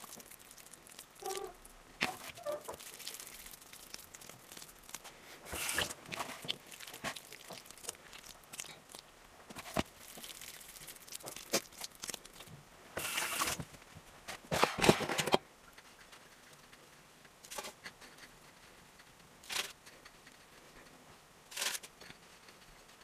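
Hands shaping minced-meat cutlets, with soft wet squishes and slaps of the mince between the palms in irregular bursts, the loudest a little past halfway. Near the end a cutlet is pressed into a coating on a plate.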